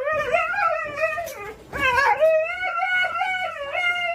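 Dog howling: two long, wavering calls, the second longer and held steadier.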